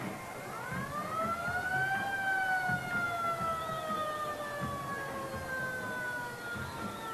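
Fire-engine siren wailing: its pitch rises for about two seconds, then falls slowly for the rest.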